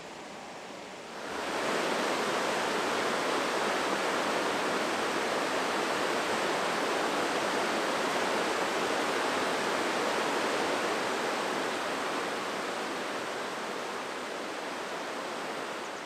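Water rushing over boulders in a fast, rocky river's rapids: a steady, even rush that gets louder about a second in and eases a little over the last few seconds.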